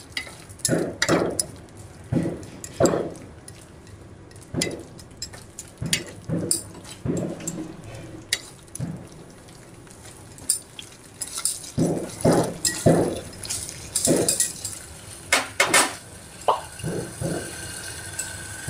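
A wooden spatula scraping and knocking against a kadai as a thick tomato-onion masala is stirred, in irregular strokes.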